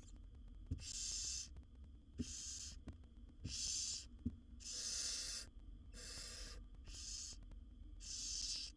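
Barn owl nestlings giving their rasping, hissing begging calls, one hiss about every second, each lasting up to about a second. A few soft knocks sound under them in the first half.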